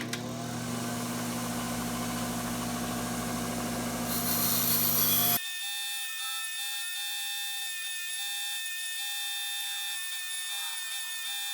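An electric power tool runs with a steady hum, growing louder and harsher about four seconds in as it works, then cuts off abruptly after about five seconds. Background music follows.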